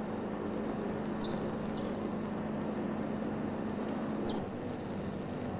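Boeing Stearman biplane's radial engine droning steadily overhead. The drone's steady tone drops away about four seconds in, and three short high chirps sound over it.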